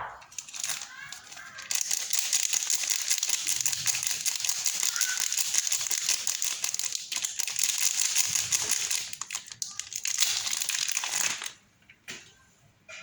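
A soap bar's wrapper being crinkled and crumpled by hand as it is unwrapped: a dense crackling rustle that starts about two seconds in and stops about a second and a half before the end.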